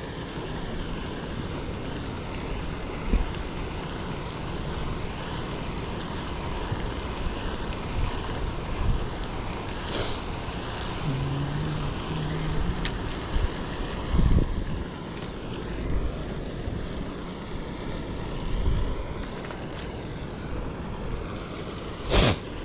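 Wind blowing across the microphone, a steady rushing noise with a low rumble, broken by a few sharp clicks.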